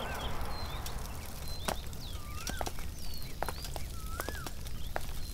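Birds calling: a few arched whistled notes, each rising then falling, about every two seconds, with short high chirps and scattered sharp clicks over a low steady rumble.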